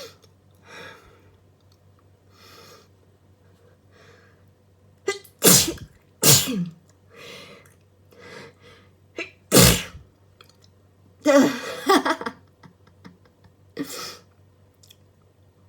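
A person's allergy sneezes in a run. Some quiet breaths come first, then loud sneezes about five and a half and six seconds in, another near ten seconds, a longer one around eleven to twelve seconds, and a smaller one near the end.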